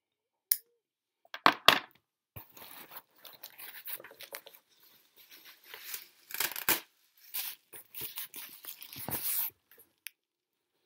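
Paper packaging rustling, crinkling and tearing in irregular bursts as hands rummage in a box, after a single sharp click about half a second in.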